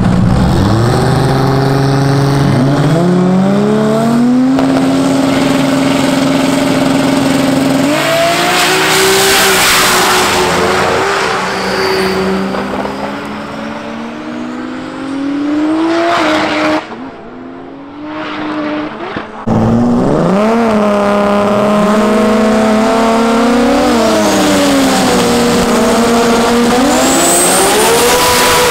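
High-horsepower drag-race car engines revving at the starting line, then accelerating hard, with the pitch climbing through gear changes. About two-thirds of the way through the engine sound drops back for a few seconds, then another engine is revved up and down.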